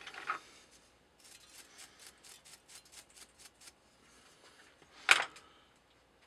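Brass chips being brushed off the lathe's toolpost: a quick run of light scraping strokes, about six a second for two and a half seconds. A single sharp knock about five seconds in is the loudest sound.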